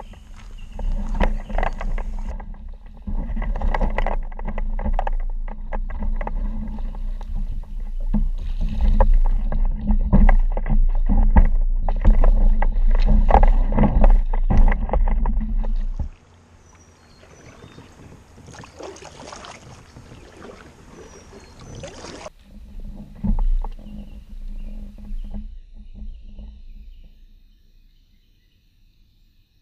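Jackson Kayak Coosa HD's plastic hull scraping and grinding over gravel and rocks as it is pushed off through shallow creek water, with water sloshing. About sixteen seconds in the scraping stops and lighter water splashing follows, with a few knocks, fading out near the end.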